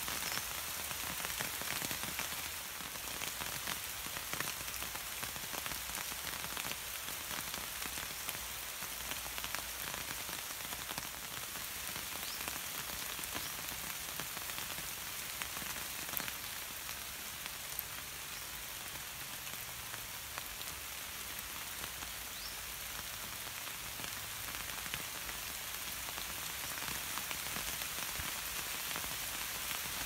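Heavy rain falling steadily, with scattered sharper drop hits.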